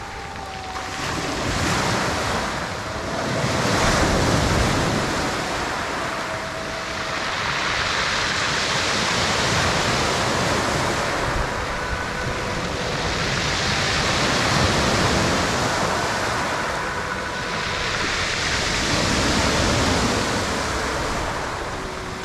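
Small sea waves breaking and washing up over a pebble beach, the hiss of the surf swelling and falling back every few seconds. Faint drawn-out tones come and go over it.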